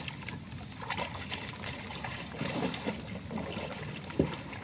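Pond water sloshing and trickling around people wading waist-deep and handling fish, with a sharp splash a little after four seconds in.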